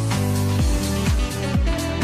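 Upbeat electronic background music with a steady kick drum about two beats a second over held bass and synth chords.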